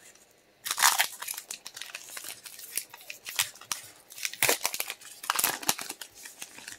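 A foil Pokémon booster pack crinkling as it is opened and its cards handled: a run of irregular crisp rustles and clicks.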